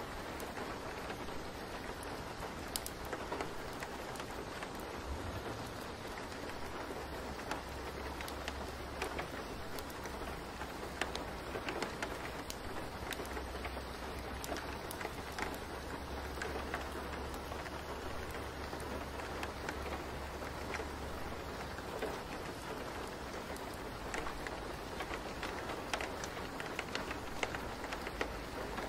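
Steady rain with scattered raindrop patters, and a low hum underneath through the middle of it.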